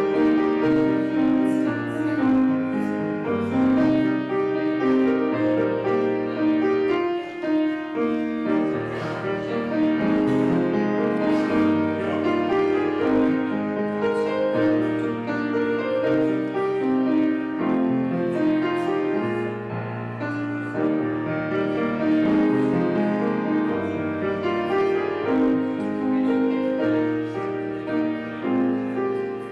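Grand piano played solo: a continuous piece of chords and melody.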